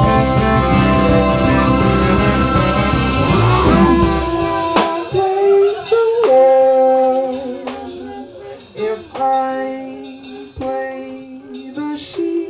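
A big band plays loudly with full horns, bass and drums, then cuts out about four and a half seconds in. A lone voice is left singing short held notes into a microphone, with pauses between the phrases.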